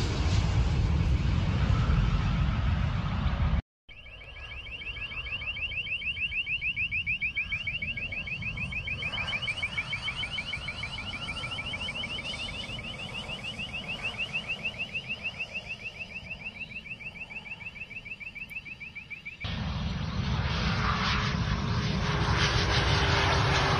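Business jets landing: the loud, steady roar of jet engines and rushing air, broken by a cut about four seconds in. For about fifteen seconds after that, a fast, even, high-pitched pulsing sounds over faint engine noise, and then the roar of another landing jet returns, with a low tone slowly falling in pitch.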